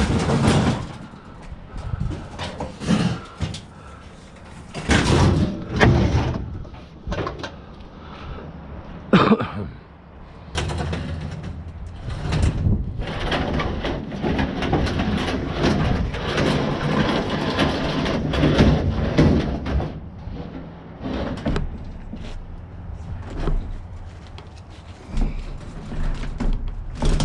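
A series of loose bangs and knocks, like scrap metal and truck doors being handled, then a steadier rumbling stretch with a low hum from about ten seconds in, still broken by knocks.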